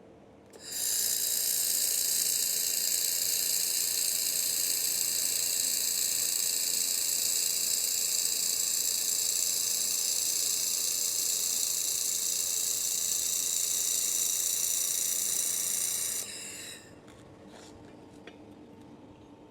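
3000 W laser welder running a continuous weld: a steady, high-pitched hiss that starts under a second in and cuts off sharply after about 15 seconds.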